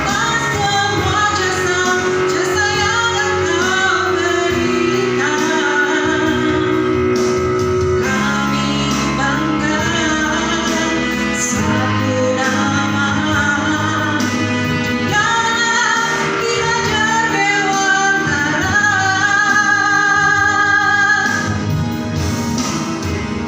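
A song: a singing voice, most likely a woman's, carrying a melody over instrumental accompaniment.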